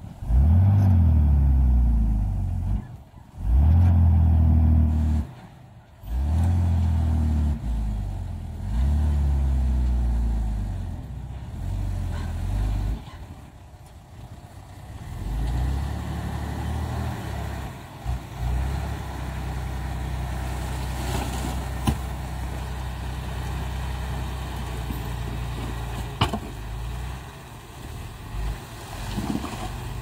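Diesel dump truck engine revving in several loud bursts with brief drops as the loaded truck pulls across the dirt. In the second half it runs at a steadier speed while the tipper body is raised to dump its soil, with a few sharp clicks.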